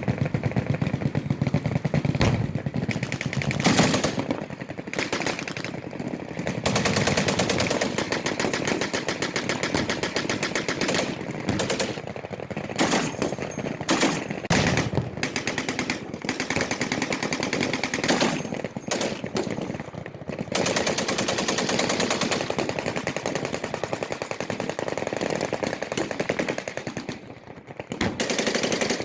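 Machine guns firing long fully automatic bursts, one on top of another, with a few short lulls.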